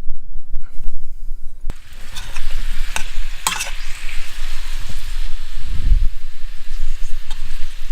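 Boiled potatoes and garlic frying in hot olive oil in a pan, sizzling as they are stirred. There are a few sharp knocks of the utensil on the pan, and the sizzle grows fuller about two seconds in.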